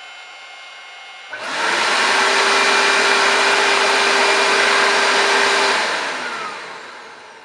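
Graphite 59G607 construction wet/dry vacuum's motor switching on automatically from its power-tool socket about a second and a half in, after a delay, and running steadily. It spins down near the end. Beforehand only the fainter hum of a heat gun plugged into the socket is heard.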